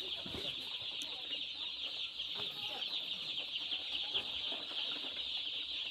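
A crowd of day-old broiler chicks cheeping continuously: a dense, high chorus of overlapping peeps from hundreds of chicks together.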